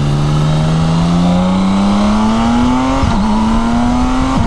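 BMW K1600B's inline-six engine revving up under hard acceleration in the low gears, its note climbing steadily, then dropping sharply at a quick upshift about three seconds in and climbing again to a second upshift near the end.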